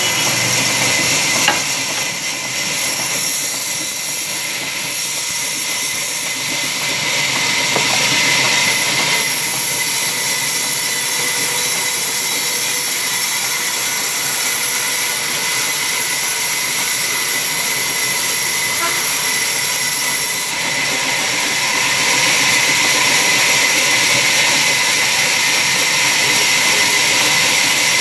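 Large vertical band saw in a sawmill running and cutting lengthwise through a log: a steady loud hiss with a high whine. The hiss grows brighter about a third of the way in and again about two-thirds through.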